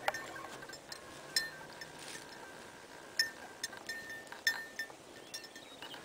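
Light metallic jingling: a handful of separate clinks, each ringing on briefly with a thin bell-like tone.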